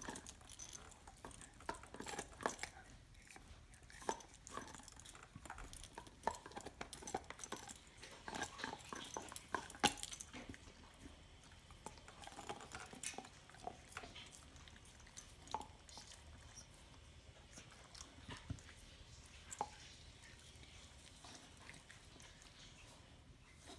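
A dog gnawing and chewing a raw bone: teeth clicking and scraping on the bone in irregular sharp clicks, thick in the first half and thinning out toward the end.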